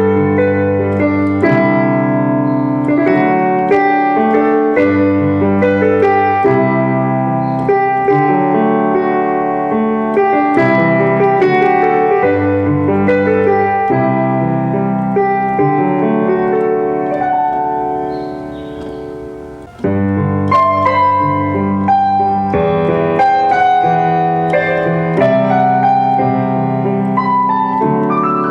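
Background piano music: a light, steady run of piano notes that dips briefly about two-thirds of the way through and then carries on.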